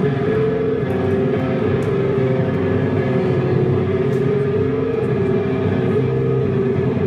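Hardcore band playing live: loud distorted electric guitar and bass through Marshall amplifier stacks, holding long ringing notes.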